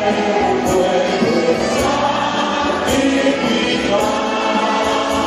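Church congregation singing a hymn together, with instruments playing along.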